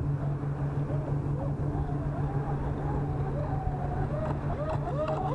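Twin brushless motors of a Proboat Zelos 36 RC catamaran whining at a distance, their pitch rising and falling in quick swoops as the boat bounces across rough water. Steady wind and wave noise run underneath.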